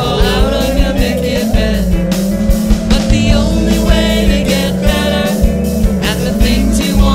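Rock music with singing, guitar and a steady beat.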